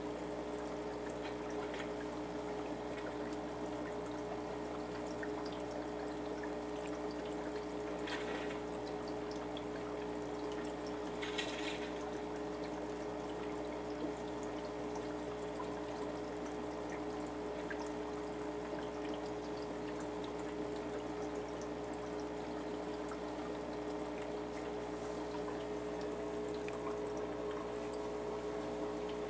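Home aquarium filter running: water trickling and splashing steadily into the tank, over a steady pump motor hum.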